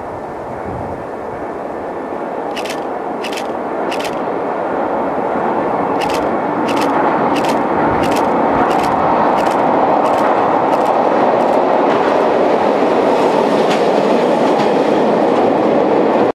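Single-car diesel railcar crossing a steel girder bridge: a rumble that grows steadily louder as it approaches, with sharp clacks of the wheels over the rail joints about every two-thirds of a second.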